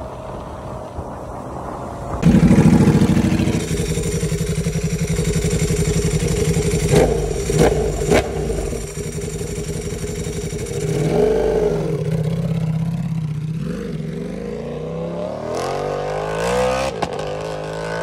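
Modified Ducati V4 superbike engine running loud, jumping up in level about two seconds in. A few sharp cracks come around seven to eight seconds in, the revs rise and fall briefly near eleven seconds, and they climb steadily over the last few seconds as it accelerates.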